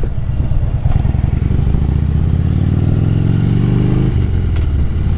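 Harley-Davidson V-twin motorcycle engine running under way, its pitch rising steadily from about a second and a half in as it speeds up, then dropping suddenly about four seconds in.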